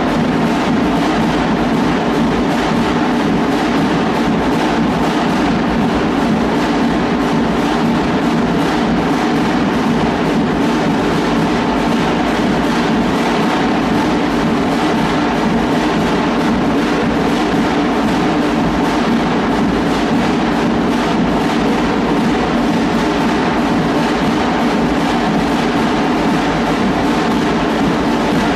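School wind band playing marching music with drums, steady and loud.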